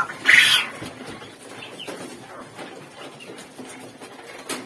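Young quails being handled in tiered wire cages, with a brief loud rustle a fraction of a second in and faint bird sounds after. A sharp click comes near the end.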